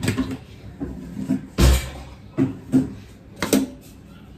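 Steel kitchen tins and pots being handled: a lid is pressed onto a large steel storage tin, with five or so sharp knocks and clanks, the loudest a heavy thud about a second and a half in.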